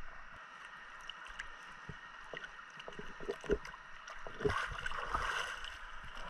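Water sloshing and splashing, with scattered small clicks and a few dull knocks, and a louder rush of water a little past halfway through.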